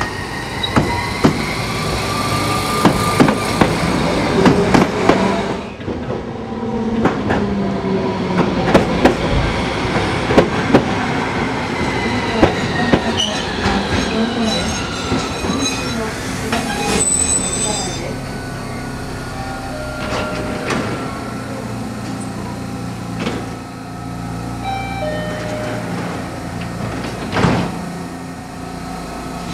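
Tokyu Setagaya Line 300-series tram cars running past the platform at low speed, their wheels squealing in gliding whines, with sharp clicks from the wheels over the rail joints, thickest in the first half.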